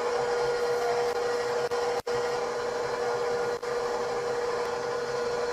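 Stand mixer motor running steadily, its paddle creaming butter in the steel bowl, with an even hum. The sound cuts out briefly twice.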